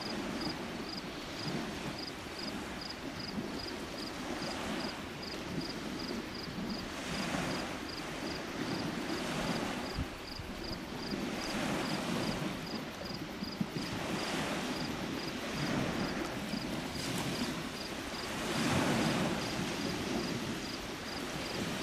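Small lake waves washing onto the shore: a hiss that swells and falls back every two to three seconds. A faint, even, high ticking about two or three times a second runs on top.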